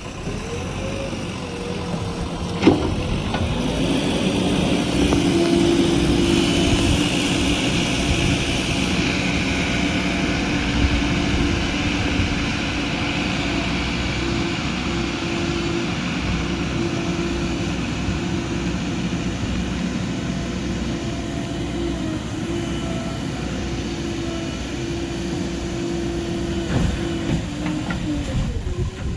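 A heavy vehicle's engine running steadily, with one sharp knock a few seconds in.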